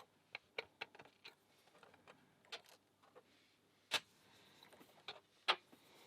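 Irregular sharp metal clicks and taps of small tools and pins being worked in an American 1100 pin-tumbler padlock, about a dozen ticks with the two loudest around four and five and a half seconds in.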